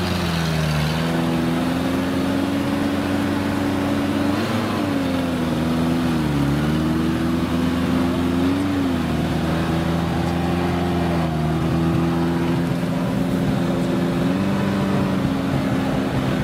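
Engine of a Suzuki SJ-type trial off-roader running at low revs as it crawls through mud, its pitch sagging and recovering several times as the throttle and load change.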